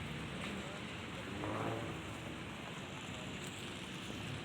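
Steady street noise on a wet, slushy road: a hiss of water and tyres with a low engine hum under it, and a brief faint voice about a second and a half in.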